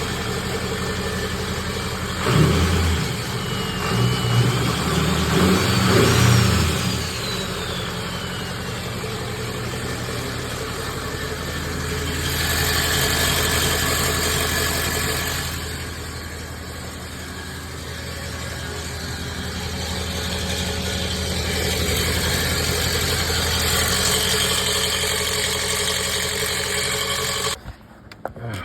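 2006 Ford 6.0 Powerstroke diesel V8 revved a few times, then idling, with the loud grinding rattle that the owner traced to the starter. The engine is shut off about a second before the end.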